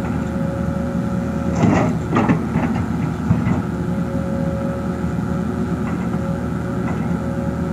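Excavator's diesel engine running steadily, with a thin whine that comes and goes and a few short knocks about two and three seconds in.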